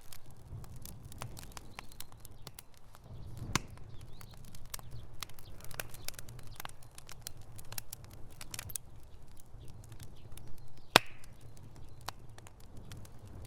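Wood fire burning in a fireplace: irregular crackles and snaps over a low, steady rumble of flame, with one sharp, loud pop about eleven seconds in.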